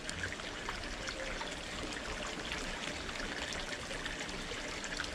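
Water trickling steadily into a small backyard fish pond, a soft continuous splashing with a few faint ticks.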